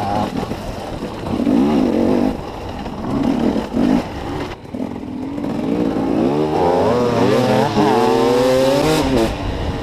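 Enduro dirt bike engine under the rider, given short bursts of throttle, then held at higher revs for about three seconds with the pitch rising and wavering before it drops back near the end.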